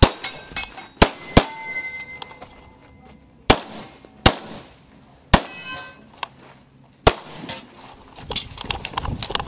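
CZ 75 SP-01 Shadow pistol shots fired close to the microphone, about seven at uneven spacing, some followed by a metallic ringing typical of struck steel targets. Near the end come a run of lighter clicks and knocks.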